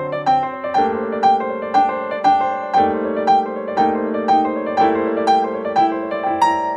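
Background piano music: a steady run of notes, about two a second, over held chords.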